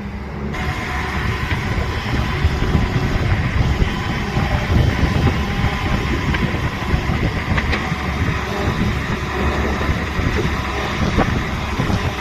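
Excavator's diesel engine running steadily while the machine swings and sets its bucket down to come off the trailer, with a couple of faint knocks.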